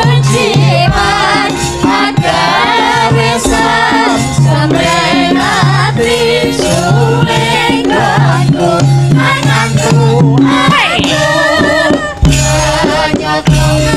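Live Javanese gamelan music with a sinden (female singer) singing over a steady rhythmic accompaniment.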